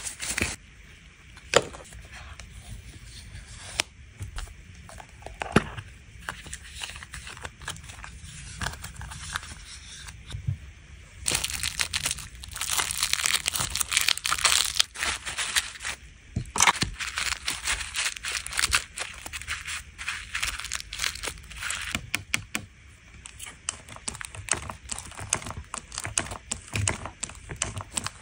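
Plastic cling wrap crinkling as fingers press it into a small plastic case. A dense crackle runs for about ten seconds in the middle, with scattered clicks and taps of the case being handled before and after.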